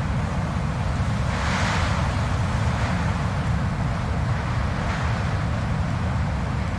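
Blizzard wind blowing steadily with a deep rumble underneath, one gust swelling up and easing off about a second and a half in.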